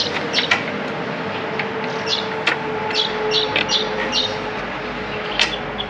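Birds chirping in short, repeated calls, with a few sharp clicks and a steady hum underneath.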